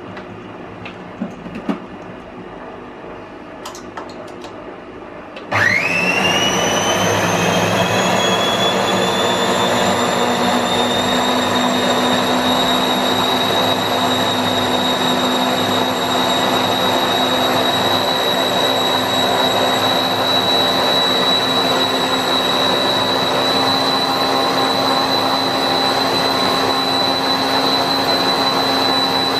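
Compact Cook Elite kitchen robot's blade motor starting up about five seconds in, its whine rising quickly in pitch and then running steadily at high speed as it blends hot vegetable soup.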